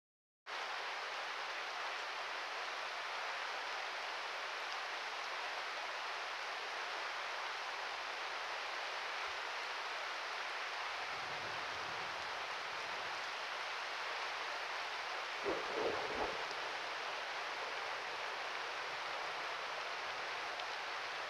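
Steady rain falling, starting suddenly about half a second in, with a brief cluster of soft low knocks about two-thirds of the way through.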